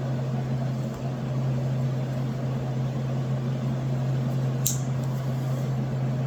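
Steady low mechanical hum, with one short sharp click late on.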